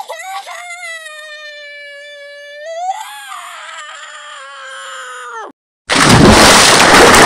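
A cartoon character's long, high-pitched scream, held for about five seconds with a brief wobble in pitch around three seconds in. After a short gap, a loud explosion sound effect comes in near the end.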